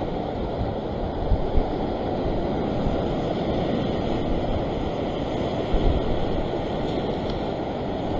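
Sea swell surging and washing over a rock ledge, a steady rushing wash, with a few short low thumps near the mic about a second in and again past halfway.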